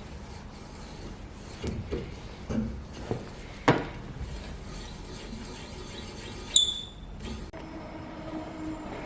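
Workshop tool work: a run of knocks and clunks, the loudest a little under four seconds in, a short high squeak about six and a half seconds in, then a steady mechanical hum starts near the end.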